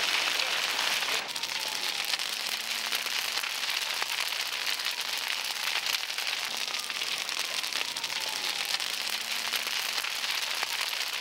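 Vegetation fire crackling and hissing, a dense, even crackle of many small pops.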